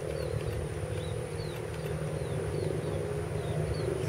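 Distant ATR turboprop airliner's engines and propellers droning steadily on the runway. Short high falling chirps repeat every half second or so above the drone.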